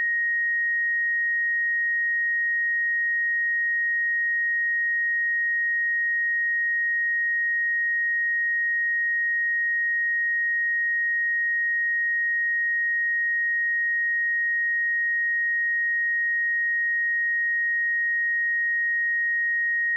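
A steady, pure 1875 Hz sine-wave test tone, one unchanging pitch held at a constant level.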